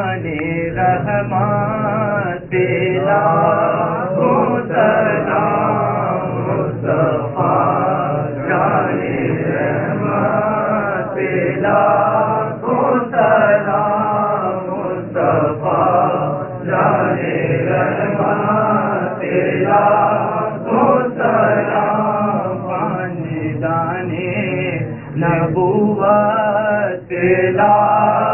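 A group of men chanting an Urdu salaam (devotional salutation to the Prophet) in unison, led by a male reciter, with voices only and no instruments.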